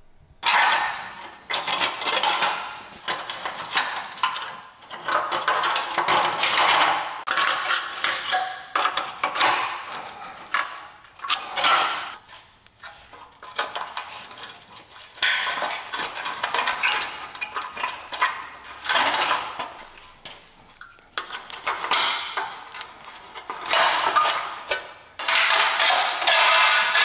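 Irregular metallic clinks, taps and scrapes from a flat tool prying rusted clips off the lines along a rusty truck frame. Near the end comes the rustle and scrape of old wiring being pulled off the frame.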